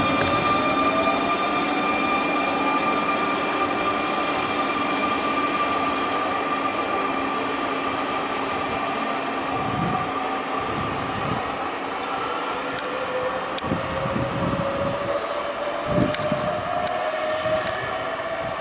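Trenitalia Jazz electric multiple unit pulling away, with a steady electrical hum and a motor whine that rises slowly in pitch as it accelerates. In the second half its wheels knock over rail joints and points, with a few sharp clicks.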